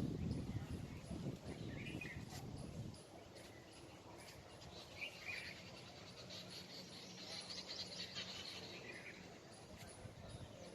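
Faint outdoor ambience with a few short, scattered bird chirps and a faint high insect buzz through the middle. A low noise fades away over the first three seconds.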